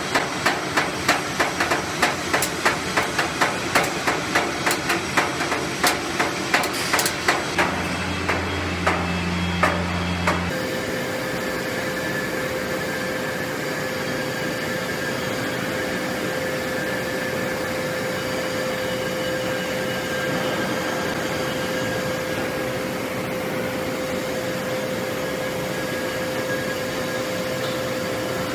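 Power forging hammer striking hot steel in quick, even blows, about two and a half a second, that thin out and stop about ten seconds in. It gives way abruptly to a steady industrial hum with a constant tone.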